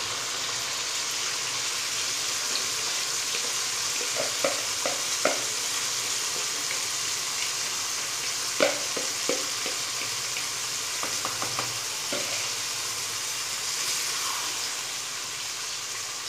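Marinated chicken pieces sizzling in hot oil and tomato masala, a steady frying hiss. A few short light taps come through in the middle.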